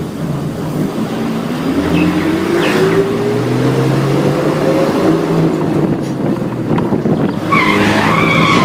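Motor vehicle engine sound effect: a steady engine run with a rushing noise, its pitch rising over a few seconds as if revving or speeding up. A brighter, higher sound joins near the end.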